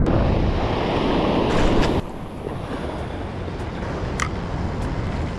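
Ocean surf washing over the rocks with wind buffeting the microphone; the noise drops abruptly about two seconds in, and a few light clicks sound later on.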